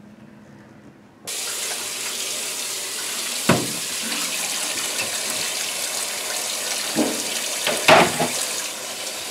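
Kitchen faucet turned on about a second in, its stream running steadily into a stainless steel sink. A few metal knocks come from a baking sheet being rinsed under the stream, the loudest near the end.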